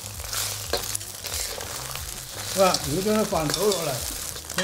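Beaten eggs sizzling in a hot oiled steel wok, stirred gently with a metal ladle that scrapes and clicks against the pan. Over the last half a person's voice comes in above the frying.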